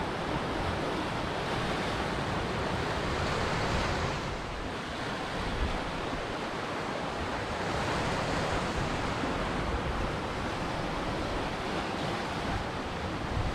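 Ocean surf washing onto a shore: a continuous rush of breaking waves that swells, eases off about four seconds in, then builds again.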